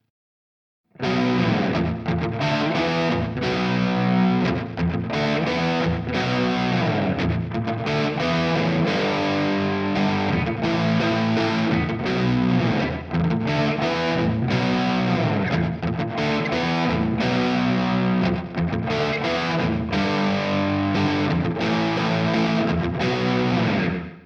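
Distorted electric guitar playing a rock riff through Nembrini Audio's free amp and effects plugins, starting about a second in and cutting off just before the end.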